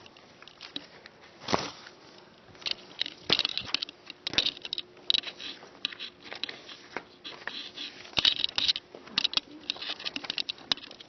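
Sheets of paper rustling and crackling as quiz papers are handed out and laid on desks, in irregular short bursts with scattered sharp taps.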